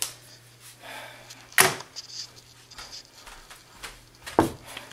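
Household handling noises: a click at the start, a sharp knock about a second and a half in (the loudest sound), and another knock near the end as a door is handled. A low steady hum cuts off at the loud knock.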